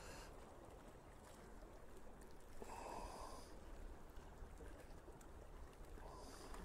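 Near silence: a faint low rumble, with a short soft hiss about three seconds in.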